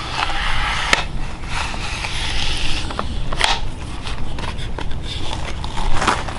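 Handling noise as a soft-bristle deck brush is turned on the threaded end of an aluminium telescopic extension pole: scraping and rubbing, with a few sharp clicks about one, three and a half and six seconds in, over a steady low rumble.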